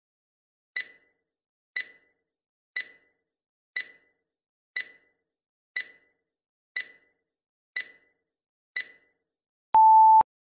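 Quiz countdown-timer sound effect: nine sharp ticks, one a second, then a single steady electronic beep of about half a second near the end signalling that time is up.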